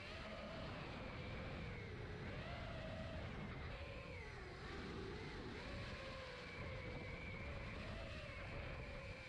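FPV quadcopter's electric motors and propellers whining, the pitch rising and falling with the throttle as it flies.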